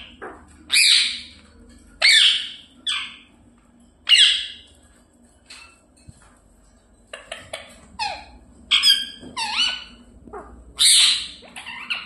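Pet parrot squawking: a series of loud, high, short calls about a second apart, many dropping in pitch, with a run of quicker, shorter calls in the middle and a loud call near the end.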